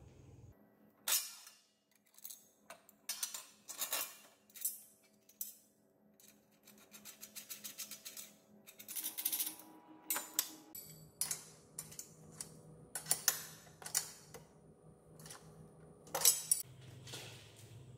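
Metal clinks and taps of hand assembly: a washer and nut going onto a steel bolt through a metal bracket, then two combination spanners knocking against the nut and bracket as it is tightened. A quick run of small ticks comes about seven to eight seconds in.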